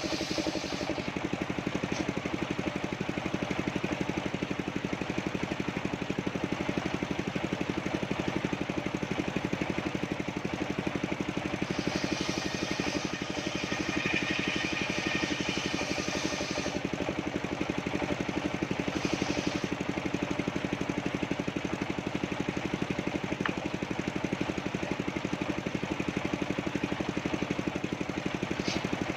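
Engine of a portable sawmill running steadily with a fast, even pulse, and a brighter hiss rising over it for several seconds near the middle.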